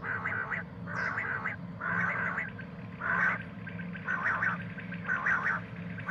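Common quail calling: a series of short, raspy notes repeated about once a second, over a faint steady low hum.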